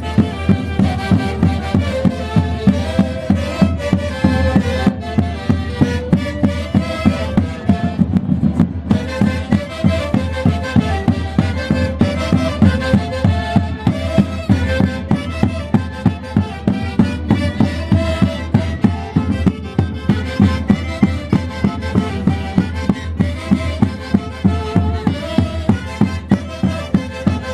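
Orchestra playing Andean Santiago festival music: a melody line over a steady, even drumbeat.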